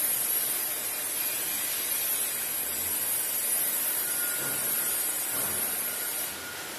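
Steady machine noise of a running automated wood-handling conveyor line: an even hiss over a faint low hum. It eases off a little about six seconds in.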